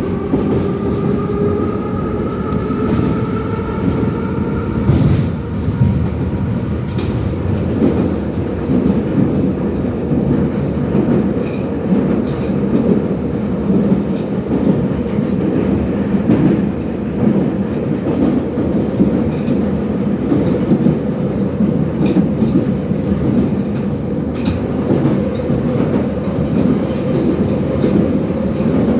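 Soviet 81-717/714 ('numbered') metro train running in the tunnel: the traction motors whine, rising in pitch over the first couple of seconds as it accelerates and creeping higher after that, over a steady rumble of wheels on rail with occasional clicks.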